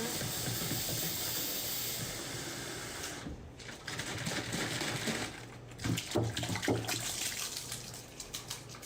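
Water running from a tap into a sink, cut off briefly about three seconds in, with a few knocks and clinks in the second half.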